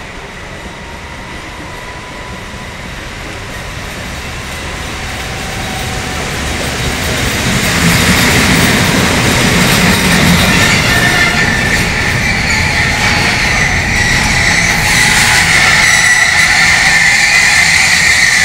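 A train approaching and running past, growing steadily louder over the first eight seconds and then staying loud. About ten seconds in, a high, steady metallic squeal sets in over the rumble and keeps going to the end.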